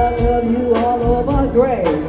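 Blues band playing an instrumental break: a lead line holds and bends notes over the accompaniment and drums.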